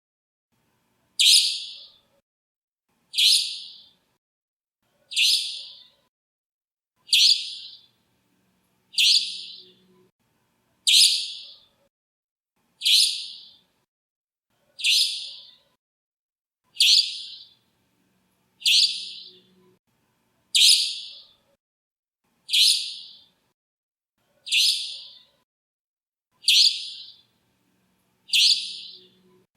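Common nightingale call: one short, high, rasping call repeated about every two seconds, identical each time, fifteen times over.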